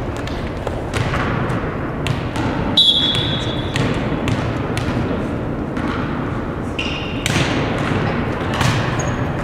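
Ball thuds and bounces on a hardwood gym floor, with scattered sharp knocks and two brief high squeaks about three and seven seconds in, echoing in a large hall.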